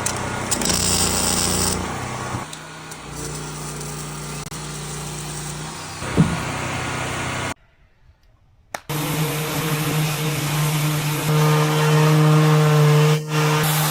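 Power tools running in a string of short clips, each a steady motor whine, with a brief drop to near silence about halfway through.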